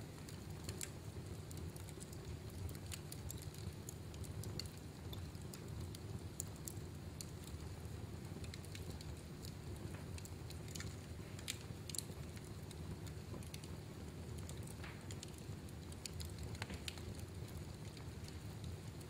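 Fire burning in a fireplace, crackling with irregular sharp pops over a steady low rush of flame.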